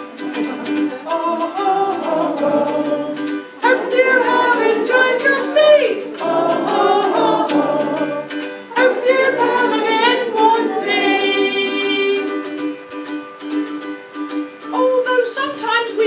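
A ukulele strummed to accompany a singing voice, with one long held note about 11 seconds in.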